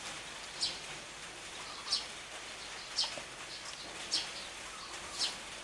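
A bird chirping repeatedly, one short high call about every second, five in all, over a steady low background hiss.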